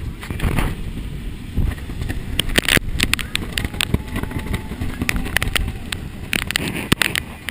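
Hurricane-force wind buffeting the microphone in a steady rumbling rush, with bursts of sharp cracks and raps a few seconds in and again near the end.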